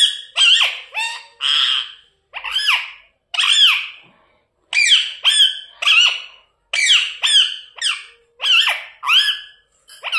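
Pet parrot chirping and squawking in a rapid series of short, shrill calls that sweep in pitch, with a brief pause about four seconds in.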